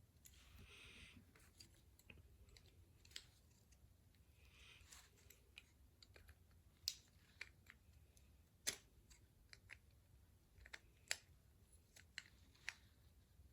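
Faint, irregular small clicks and taps of plastic toy parts being handled and fitted together, with a couple of brief scraping rustles.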